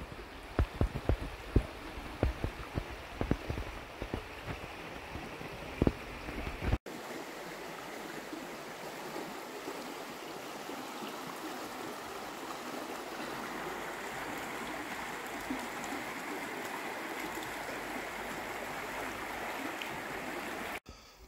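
Wind buffeting the microphone in irregular low gusts for the first few seconds. Then, after a cut, a shallow river rushes steadily over a stony bed until another cut near the end.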